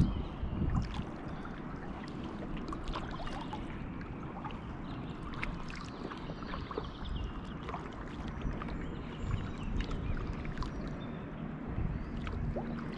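Kayak paddling: paddle blades dipping and splashing, with scattered water drips and a steady low rumble underneath.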